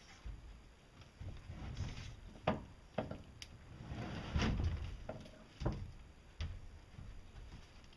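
Heavy wooden shipping crate holding a 450-pound milling machine being walked across a deck by tilting and pivoting it: a series of irregular wooden knocks and thuds, with a longer scraping stretch about halfway through.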